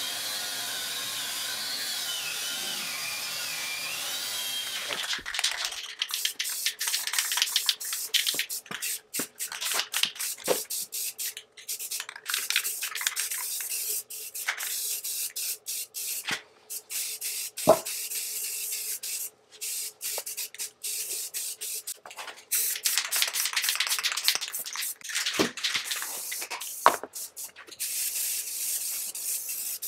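An angle grinder with a wire cup brush running against the cast-iron lathe bed, its whine wavering in pitch under load. About five seconds in it gives way to aerosol spray-paint cans hissing in many short bursts, stopping and starting, with a few sharp clicks between them.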